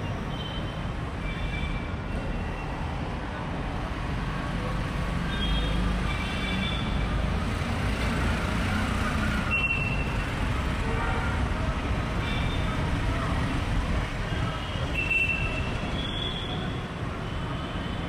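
Busy city street traffic: a steady rumble of passing vehicles, with short horn toots now and then and faint voices in the background.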